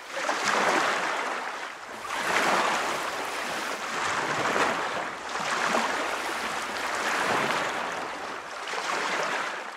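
Ocean waves washing in, a rushing swell that rises and falls every second or two.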